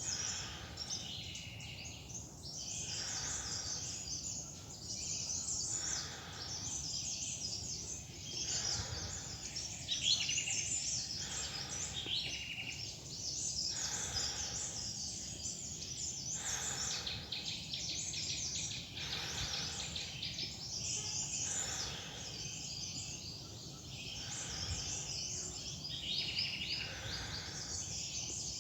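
Forest birds chirping and singing in a dense chorus, many high calls and trills overlapping without a break.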